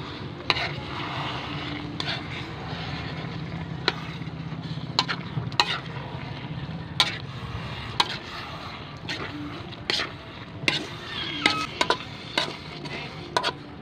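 Metal spatula stirring food in an aluminium wok, scraping through the contents and knocking against the pan with irregular sharp clacks, over a steady low rumble.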